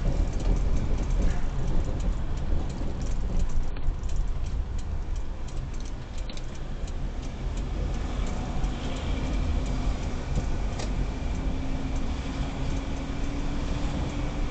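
Car cabin noise: engine and tyre rumble as the car drives slowly along a street. In the second half a faint engine note rises slowly in pitch as the car picks up speed after a turn.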